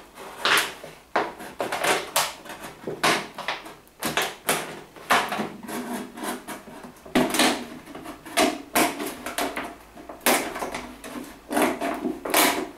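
Thin plastic of an empty two-litre pop bottle crackling and crinkling as a knife cuts round its bottom, in an irregular string of sharp cracks and clicks.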